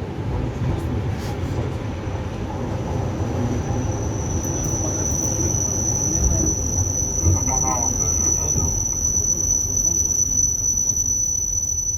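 ED4M electric multiple unit running, a continuous low rumble, with a high steady squeal that comes in a few seconds in and holds.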